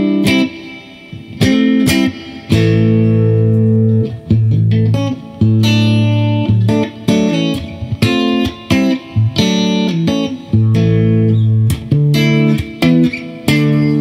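Electric guitar with humbucker-sized Alnico V P90 pickups, in the middle position with both pickups on, playing rhythm chords: short choked stabs alternating with chords left ringing for a second or two.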